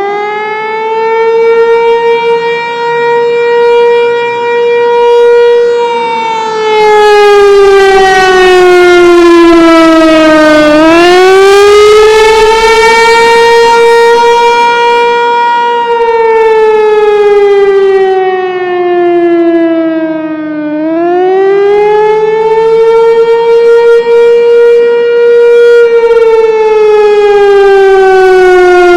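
Federal Signal 508 outdoor warning siren sounding a wailing Attack signal. The tone rises, holds about six seconds, then slides down over about four seconds before climbing again, roughly every ten seconds. Its loudness swells and dips as the rotating head sweeps past.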